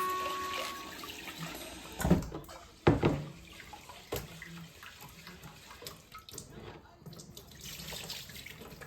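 Water running from a tap into a sink, with a few sharp clunks about two and three seconds in and another about four seconds in.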